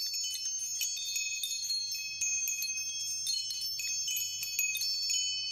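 High-pitched metal chimes tinkling, struck many times at an irregular pace, each note ringing on and overlapping the next.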